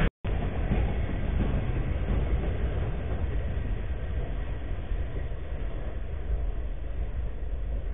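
Freight train cars rolling past on the track, a steady rolling noise that slowly fades as the end of the train goes by. There is a brief dropout just after the start.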